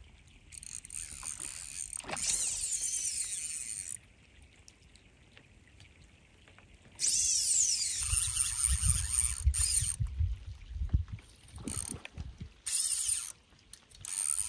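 Fly reel's clicker drag buzzing as a big trout runs line off the spool, in several runs of a few seconds each. The fish is taking so much line that it runs into the backing. Low thumps sound under the middle run.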